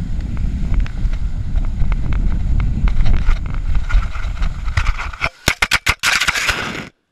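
Wind buffeting a GoPro's microphone over the hiss and scrape of skis on packed snow. About five seconds in, the skier falls: several sharp knocks, then a loud scrape of snow against the camera, and the sound cuts off suddenly.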